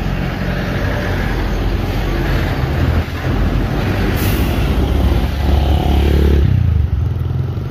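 A motor vehicle's engine running close by, growing louder from about five seconds in, with a short hiss about four seconds in.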